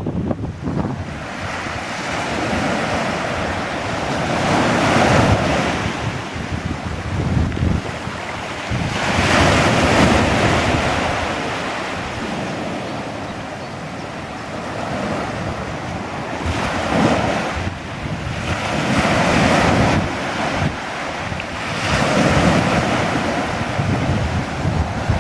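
Sea waves breaking and washing up a beach, the surf swelling and falling back every few seconds, with wind buffeting the microphone as a low rumble underneath.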